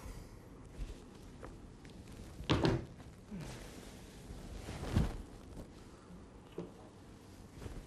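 A person moving about a room: a few soft footsteps and light knocks, a heavier double thud about two and a half seconds in and another thud near five seconds, with cloth rustling in between.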